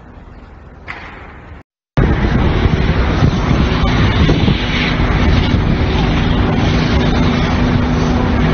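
Fainter background noise, cut off by a brief dead-silent gap about two seconds in where one clip is spliced to another; after it, a loud, steady rumble of traffic and wind with a faint low hum underneath.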